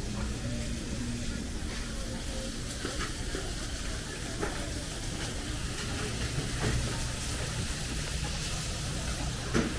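Busy market ambience: a steady low hum and hiss with faint background chatter and scattered clicks, and a single louder knock near the end.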